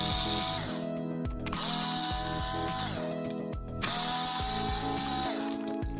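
Power screwdriver running in three short runs, each whirring up to speed and winding down as it stops, as the three screws of a Nutribullet blade base are backed out. Background music plays underneath.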